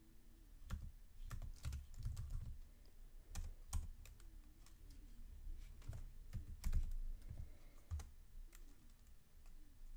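Typing on a computer keyboard: irregular keystrokes in short runs, with gaps between them.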